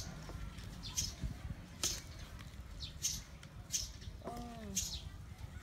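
Wooden spatula scraping and knocking against a metal wok while stir-frying chicken with ginger, short sharp strokes about once a second. A brief falling voice-like sound comes about four seconds in.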